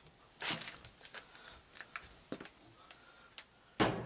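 Scattered clicks and taps from handling a reverse-osmosis/deionization filter unit and its mounting clips, with a louder click about half a second in and a sharp knock near the end.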